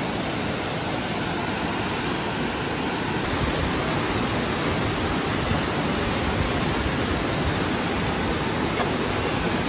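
Dingmans Falls, a tall waterfall cascading down rock ledges into a pool, makes a steady, continuous rush of falling water.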